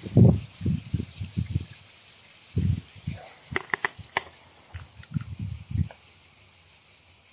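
Steady high-pitched buzzing chorus of cicadas, with low rumbles and thumps of the phone's microphone being handled and swung about.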